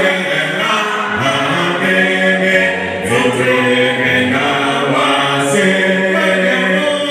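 A group of voices singing a hymn a cappella in harmony, with no instruments, holding long notes that change every second or so.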